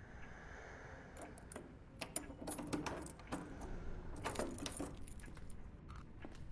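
A run of small metallic clicks and light jingles from about a second in until about five seconds in, as a small metal object is handled.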